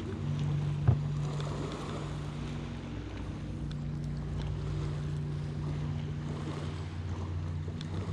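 Boat motor running steadily, with wind buffeting the microphone and one sharp knock about a second in.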